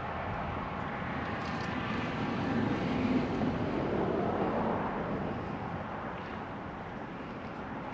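A motor vehicle's engine passing by, growing louder toward the middle, rising in pitch, then fading, over steady outdoor wind noise.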